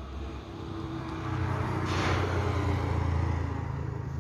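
A motor vehicle's engine running close by, a low steady sound that grows louder from about a second in and stays up through the middle, with a brief hiss about two seconds in.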